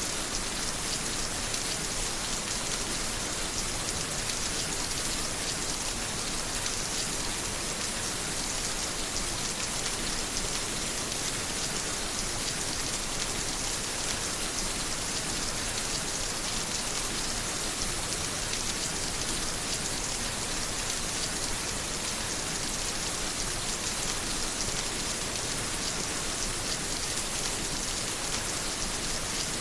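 Steady rain falling on a surface, an even hiss of many drops with no lulls or thunder.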